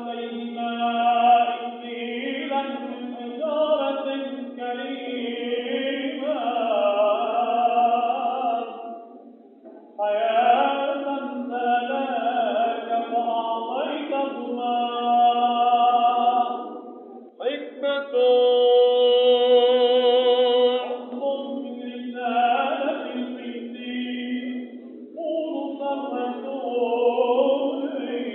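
A male cantor singing Orthodox Byzantine-style chant in Arabic, in long melismatic phrases with short breaths between them and a held, wavering note about two-thirds of the way through. The recording sounds thin, with no bass or treble.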